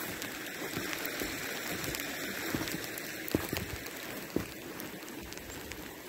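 Sleet and rain pattering steadily, with a couple of faint knocks in the middle.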